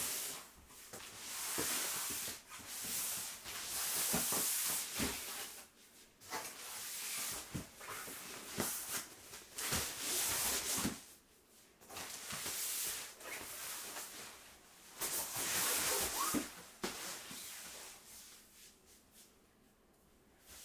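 Stiff white fabric storage boxes being handled and stacked: the fabric rustles and rubs in repeated bursts, with soft knocks as boxes are set down, quieter near the end.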